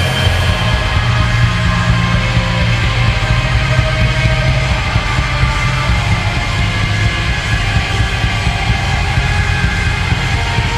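Loud, dense music with strong held low notes, playing steadily without a break.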